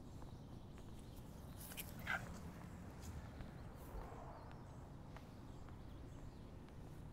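Faint outdoor ambience with a steady low rumble and soft footsteps on a concrete walkway, with a brief high chirp about two seconds in.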